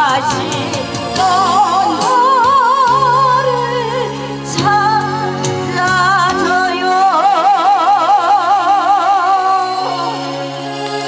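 A woman sings through a microphone and PA loudspeakers over an instrumental accompaniment, holding long notes with a wide, even vibrato. Her voice stops near the end, leaving the accompaniment playing.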